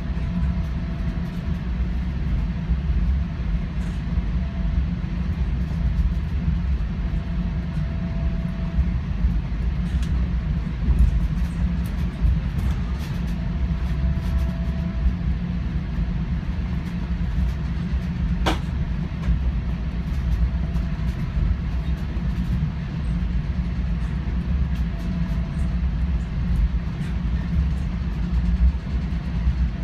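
Steady low rumble of a Caltrain commuter train running at speed, heard from inside the passenger car. A faint hum comes and goes, with scattered light clicks and one sharp click about 18 seconds in.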